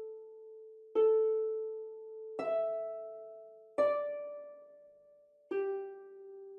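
Slow, sparse relaxation music: four single plucked notes about a second and a half apart, each starting sharply and ringing out as it fades.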